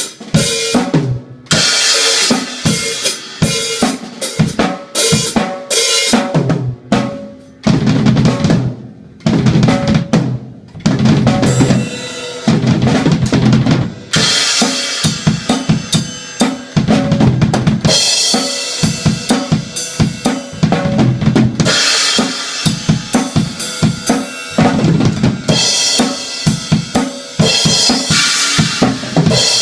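Acoustic drum kit played as a solo: busy snare and bass drum patterns and fills, with stretches of ringing Zildjian ZHT cymbal crashes and rides laid over them.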